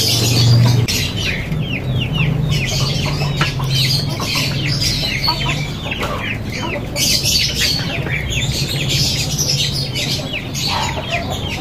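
Chickens clucking, with a run of quick high chirps several times a second, over a steady low hum.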